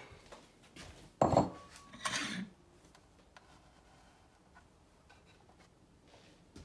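A plastic bowl is knocked down onto a digital kitchen scale about a second in, followed by a short clatter of dishes, then a few faint clicks.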